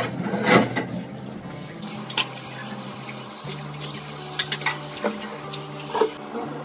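Steel dishes and plates clinking and knocking together as they are washed by hand at a kitchen sink: a loud clink about half a second in, then scattered lighter clinks.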